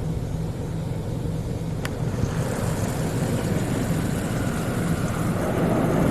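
3B NeXus Crossfire in-bay automatic car wash running: a steady pump hum under spray hissing onto the car, the spray getting stronger about two seconds in and louder again near the end. A single sharp tick just before the spray picks up.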